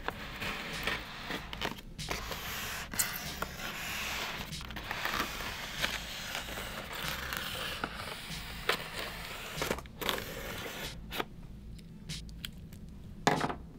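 A cutter slicing through the packing tape around a styrofoam shipping case: irregular scraping and crackling with scattered sharp clicks.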